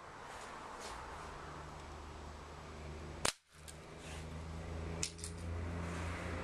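A break-barrel pellet gun fires once about three seconds in, a single sharp crack. Two fainter clicks follow close together about two seconds later. A low steady hum builds underneath throughout.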